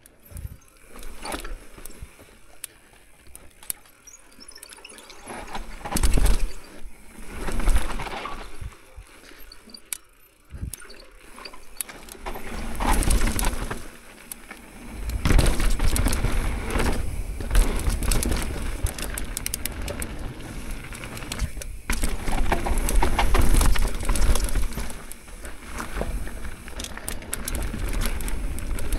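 Mountain bike riding down a trail: tyre noise with frequent rattles and knocks over bumps, and wind buffeting the microphone, heavier in the second half.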